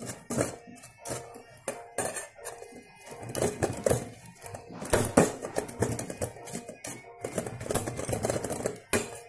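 A steel spoon scrapes and clicks irregularly against a stainless-steel wire-mesh sieve as custard apple pulp is pressed and stirred through it. The pressing is loosening the black seeds from the pulp.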